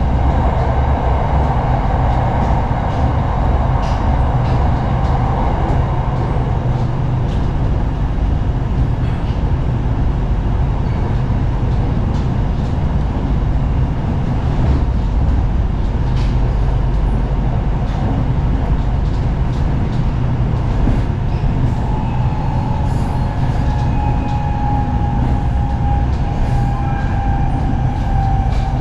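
SRT Red Line electric commuter train (Hitachi AT100) running along the track, heard from on board: a steady low rumble of wheels and car body. About two-thirds of the way through, a whine from the traction motors sets in and slowly falls in pitch as the train slows.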